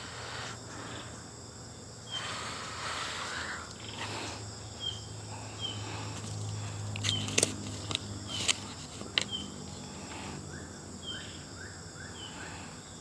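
Plastic pesticide bottles knocking and rattling as they are picked out of a plastic basket and handled, with a few sharp knocks about halfway through, over steady insect chirping.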